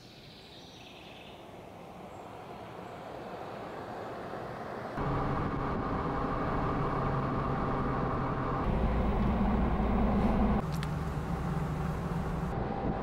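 Car driving on a country road, heard from inside the cabin: a steady hum of engine and tyres. It swells up gradually at first, then jumps louder about five seconds in, and its low drone shifts twice later on.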